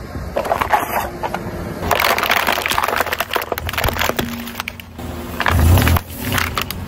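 Car tyre rolling slowly over small objects and crushing them: a run of crackling, snapping and crunching as plastic packaging breaks under the weight, with a heavier low squashing sound about five and a half seconds in as a plastic water bottle is pressed flat.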